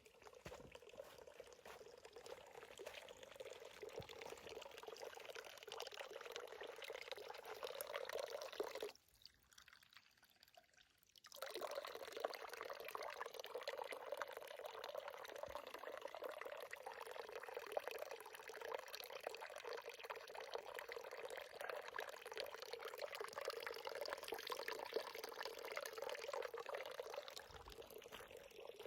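Spring water pouring in a steady stream, breaking off for about two seconds about a third of the way in, then pouring again.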